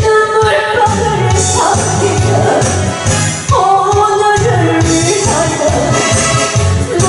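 Music with a voice singing a melody over a steady drum beat, live and loud.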